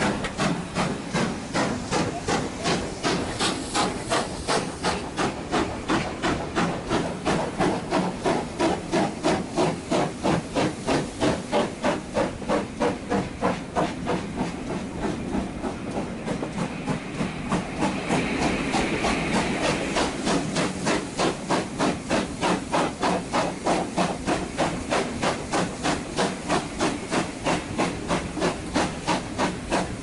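Steam locomotive chuffing steadily under way, its exhaust beats coming about two to three a second, heard from an open carriage window. A little past the middle the beats blur into a louder steady hiss for a few seconds.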